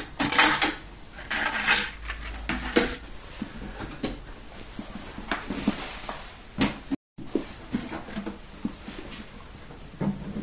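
Scattered knocks and clunks of metal-cased hi-fi components being handled: a Kenwood KX-520 cassette deck is lifted off the amplifier and a Hitachi D-850 cassette deck is set down in its place. The sound cuts out briefly about seven seconds in.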